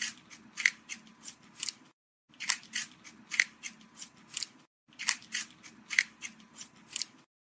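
Rabbit chewing: quick crunchy bites about three a second, in three runs of two to three seconds with short pauses between.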